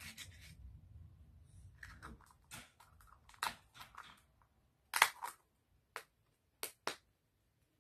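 Handling a paper bill and a plastic Easter egg while stuffing cash inside: soft rustling and crinkling, then four sharp plastic clicks over the last few seconds, the first one the loudest.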